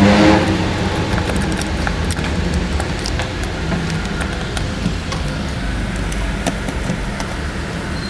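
Steady low rumble of background road traffic, with small scattered metallic clicks from a screwdriver tightening wire screws on a screw terminal block.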